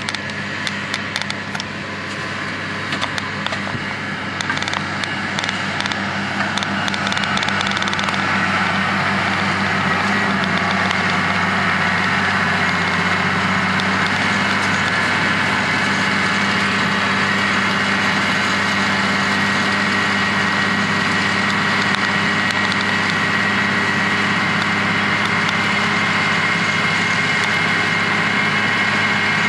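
Heavy farm machinery running steadily at harvest: a low engine hum with a high whine that grows louder after about eight seconds.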